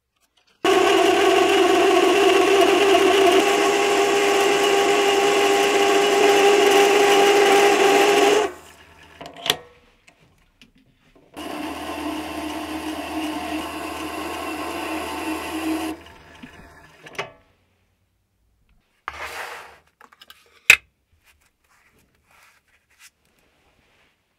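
Mini lathe running with a steady whine while a carbide insert tool cuts the spinning workpiece, in two passes of about eight seconds and then four and a half seconds, the second quieter. A few short clicks follow, with one sharp clack near the end.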